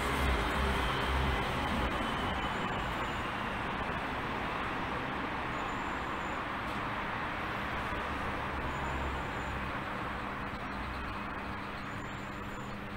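Steady background street traffic noise, a continuous rumble and hiss that eases off slightly toward the end.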